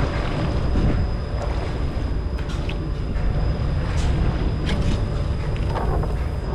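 Wind buffeting the microphone aboard a boat at sea: a steady low rumble, with a few faint ticks.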